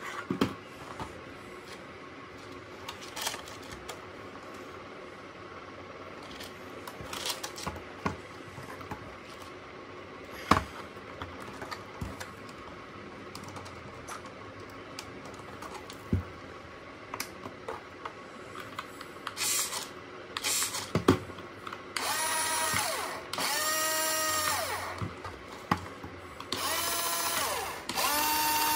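A toy RC SUV's small electric drive motor and plastic gearbox whining in three runs near the end, as the remote spins its wheels in the air. Each run rises in pitch as it starts and falls as it stops. Before that there are only scattered clicks and knocks from handling the plastic toy and its remote.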